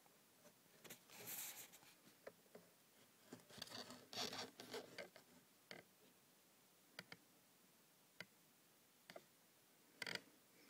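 Quiet handling noises: a short rustling scrape about a second in, a longer scraping rustle around four seconds in, then a few scattered light clicks and a brief louder rustle near the end.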